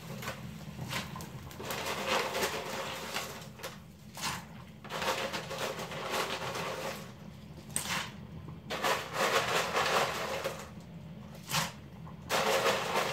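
Dry pasta rattling and rustling as it is scooped by hand from a plastic box and dropped into a pot of boiling water, four handfuls, in irregular noisy bursts over a low steady hum.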